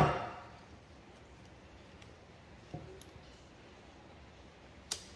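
Steel parts of a Case 621 wheel loader's bucket cylinder piston being fitted by hand. A sharp metallic snap rings briefly at the very start as a part snaps into place. A few faint ticks follow, then a second sharp click near the end.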